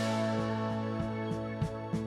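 Background instrumental music: held chords over a steady, light beat.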